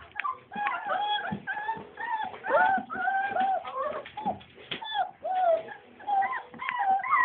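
Four-week-old Scottish Deerhound puppies whining in a quick run of short, high-pitched calls that bend up and down, with small clicks and knocks in between.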